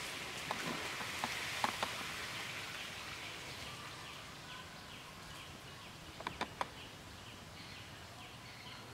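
Outdoor ambience. A steady hiss fades over the first few seconds, with scattered sharp clicks and a quick cluster of clicks a little past halfway. A short high chirp repeats at an even pace through the second half.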